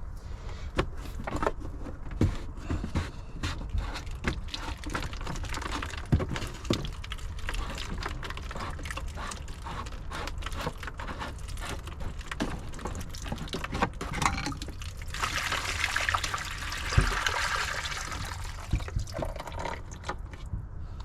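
Water pouring and trickling out of a spa heater's plumbing as it is disconnected, with scattered clicks and knocks of tools and fittings being handled. The pouring is heaviest for a few seconds in the last third.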